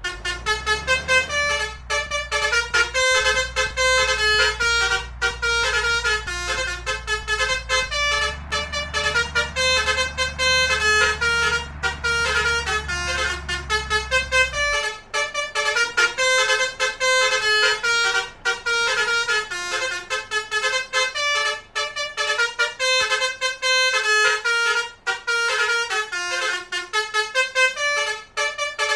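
Indonesian telolet bus horn, a multi-tone horn playing a fast tune of quickly changing notes without pause. A low rumble underneath drops away about halfway through.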